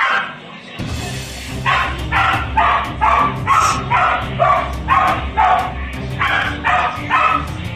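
Belgian Malinois barking over and over, about two barks a second, in two runs with a short pause in the middle, under a low steady hum that comes in about a second in.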